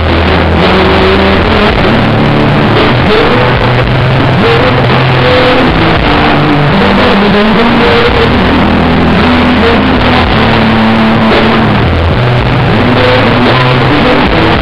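Live rock band playing loud: distorted electric guitars and bass holding notes that change every second or so over drums, recorded at a very high, steady level.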